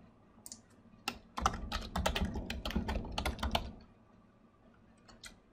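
Computer keyboard typing: a quick run of keystrokes lasting about three seconds, then a couple of lone clicks near the end.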